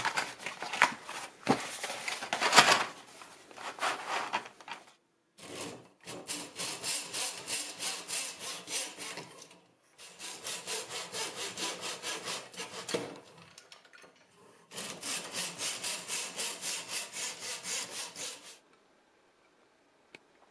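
Colored pencils being handled, with irregular clattering and rubbing, then a hand miter saw cutting through bundled wooden colored pencils in three bouts of quick back-and-forth strokes, about three a second.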